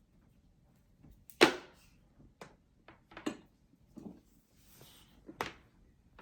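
Packaging and accessories being handled during an unboxing: a string of knocks and taps, the loudest about one and a half seconds in and another near the end, with a brief rustle just before it.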